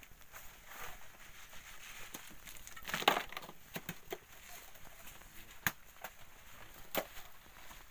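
Shovels and hoes scraping and digging into volcanic sand and gravel. A louder crunching scrape comes about three seconds in, and two sharp knocks follow near the end.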